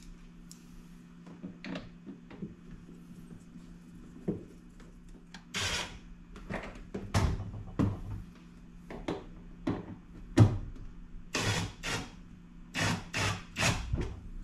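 Refrigerator parts being handled and fitted back into place during reassembly: a series of clicks, knocks and short scrapes, sparse at first and denser and louder in the second half, over a steady low hum.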